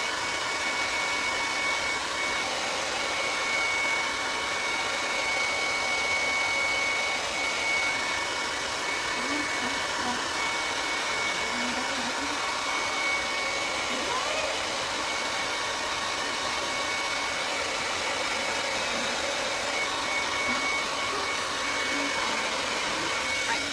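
Hand-held hair dryer running steadily on one setting, a rushing airflow with a high motor whine, blow-drying the lace of a lace front wig.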